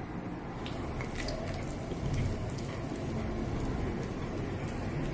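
A ginger cat biting and chewing a piece of shrimp held in a person's fingers: irregular wet clicking chewing sounds, starting about a second in.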